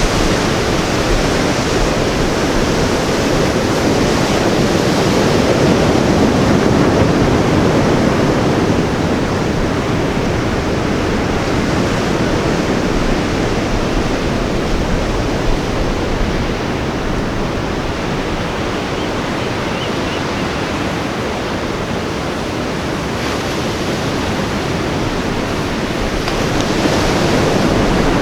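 Ocean surf washing on a beach: a continuous rush of waves that swells about five seconds in and again near the end.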